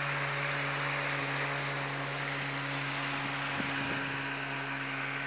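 Small motorboat's engine running steadily as the boat passes on the river: a low, even drone with a hiss of water and air.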